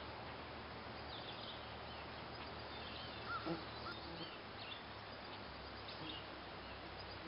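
Outdoor ambience: faint, distant birds chirping now and then over a steady low background hum.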